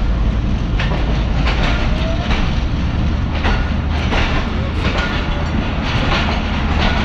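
Deep, steady rumble of a diesel locomotive standing in the station with its engine running, under regular footsteps on the footbridge.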